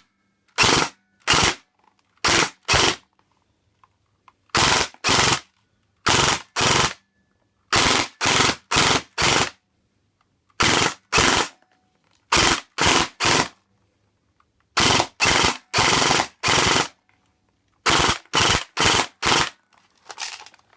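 Electric airsoft AK rifle firing short bursts, about two dozen in all, mostly in quick pairs and threes with brief silent pauses between. The gun is fed from a freshly wound flash magazine, and the BBs are still feeding.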